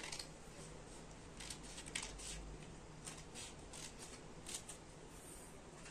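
Small scissors cutting a folded sheet of A4 paper along its crease: a run of a dozen or so short, faint snips, irregularly spaced.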